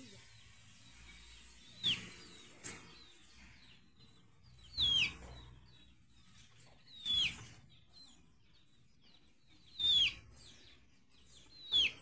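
Maritacas (small Brazilian parrots) giving short shrill calls, each falling in pitch, about five times at intervals of two to three seconds.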